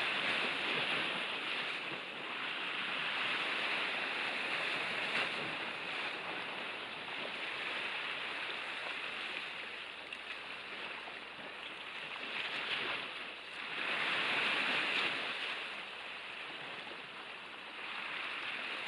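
Sea surf washing onto the shore, a steady hiss that swells and fades, loudest a little past the middle.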